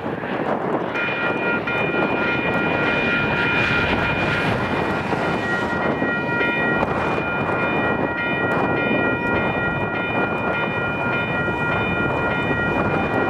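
Train rolling past with the steady noise of wheels on rail. A steady high-pitched whine of several tones sets in about a second in and holds.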